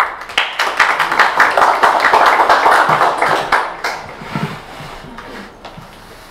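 Audience applauding, a dense patter of many hands clapping that swells at once and fades out after about four seconds.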